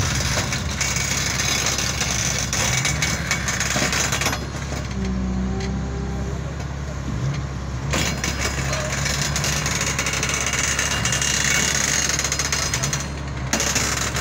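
Hitachi EX450LC excavator's diesel engine running steadily under load, with scattered knocks and clatter of granite being handled. The hiss and clatter drop away for a few seconds near the middle.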